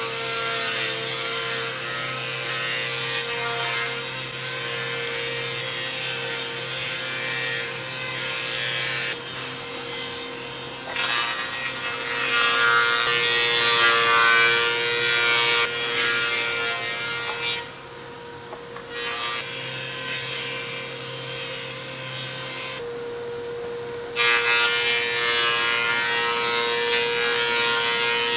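Thickness planer running with a steady motor hum while boards are fed through it. The cutter block's rasping gets louder for several seconds at a time while a board is being planed, twice in the second half, and eases in the short gaps between boards.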